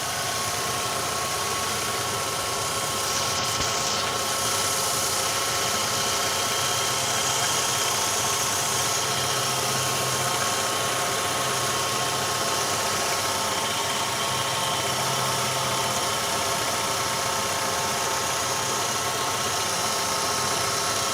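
Ravon R3's 1.5-litre four-cylinder petrol engine running steadily, quietly and evenly, with no alternator-belt whistle: the squeal is cured after the belt was taken off and the pulley grooves cleaned.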